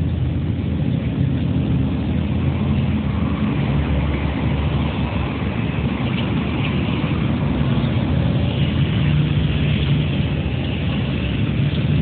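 Steady low rumbling noise without distinct events, with a fainter higher hiss that swells and fades.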